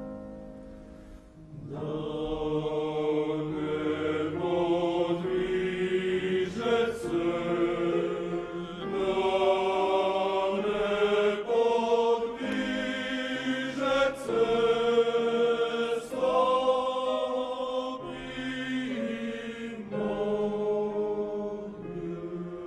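Choir singing sustained chords in Croatian, coming in about two seconds in after a soft piano passage.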